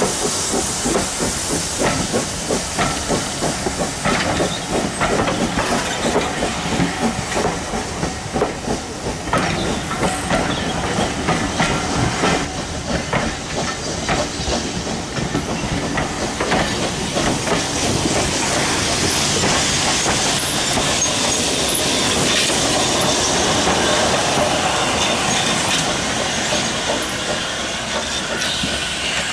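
Passenger coaches rolling past close by, their wheels clicking and knocking rhythmically over the rail joints. In the later part an even hiss of steam from a saddle tank steam locomotive takes over.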